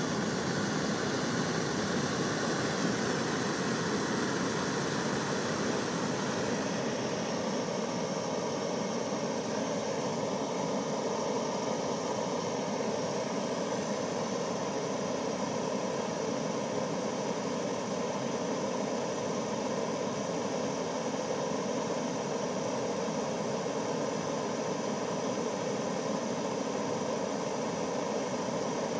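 Backpacking gas canister stove burning at full flame: a steady, even rushing hiss from the burner. The highest part of the hiss drops away about seven seconds in.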